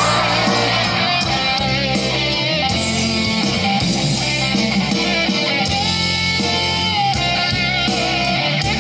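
Background music: a guitar-led song with a steady drum beat.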